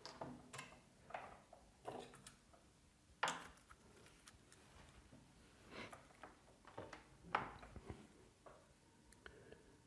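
Faint scattered clicks and light taps from handling small tools and wire on an LED wire tree, as a loose wire is put back for soldering. The two sharpest taps come about three seconds in and again past seven seconds.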